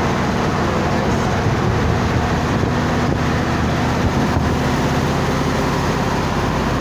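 A vehicle engine running steadily under a constant rushing noise.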